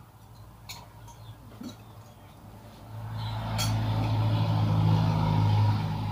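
A motor vehicle's engine running, growing louder about halfway through and easing off near the end.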